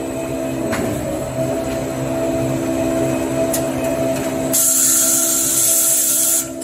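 Toilet paper log rewinder running at production speed, a steady machine hum with several held tones. About four and a half seconds in, a loud hiss joins it for nearly two seconds and cuts off suddenly.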